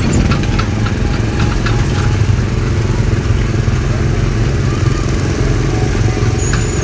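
Small gasoline engine of a Tomorrowland Speedway ride car running steadily under way, a low drone heard from on board, with light scattered rattles.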